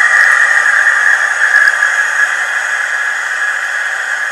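Hand-held hair dryer running on its highest hot setting, a steady hiss of rushing air.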